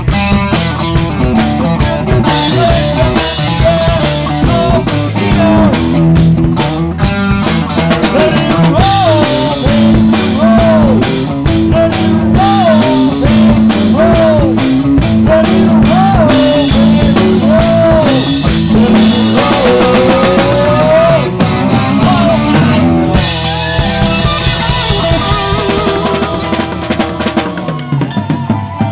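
Live rock band playing: a drum kit and electric guitars. Through the middle, a lead line of bending, wavering notes rides on top.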